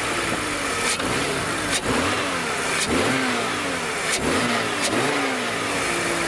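BMW E46's M54 straight-six running just after starting, revved in a series of short throttle blips, its pitch rising and falling about once a second. The engine has fresh intake boots fitted to cure a vacuum leak.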